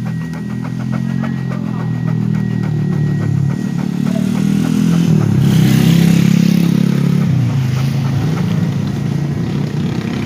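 A motorcycle engine running, its pitch wavering, growing louder to a peak about halfway through and then easing off a little.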